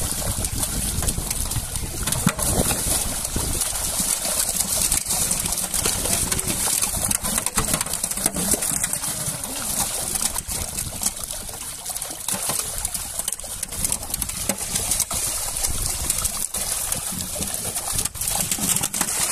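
A netful of pangas catfish thrashing at the surface, with continuous churning and splashing water and many sharp slaps as fish break the surface.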